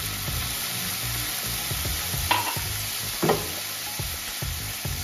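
Tamarind water sizzling steadily as it hits a hot nonstick pan of crushed coconut masala, with a wooden spatula knocking and scraping against the pan. Two sharper scrapes come a little over two and three seconds in.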